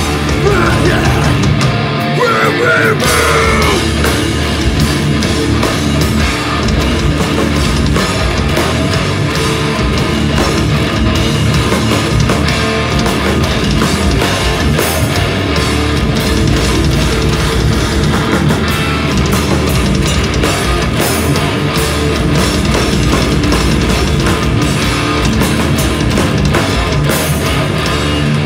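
Live band playing loud, heavily distorted music: electric guitars, bass and drums in a dense, unbroken wall of sound.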